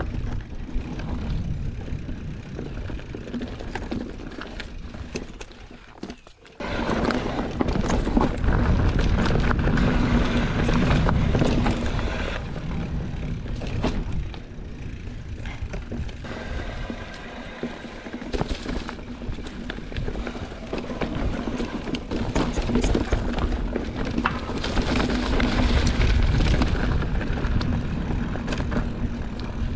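Specialized Stumpjumper mountain bike ridden along a dry dirt trail: tyres rolling and the bike rattling over roots and rocks, with wind buffeting the microphone. The noise drops off briefly about six seconds in, then resumes.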